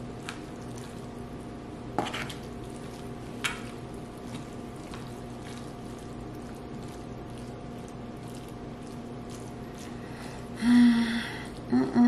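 A fork stirring wet macaroni and shredded cheese in an aluminium foil pan: soft squishing with a few faint clicks against the foil. Near the end a short burst of voice cuts in.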